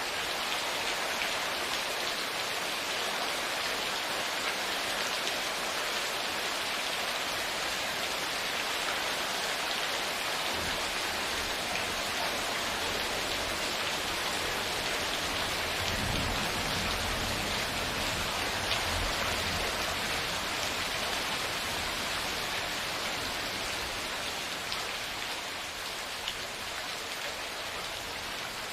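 Steady rain falling, with low rumbling thunder that comes in about a third of the way through and is strongest around the middle.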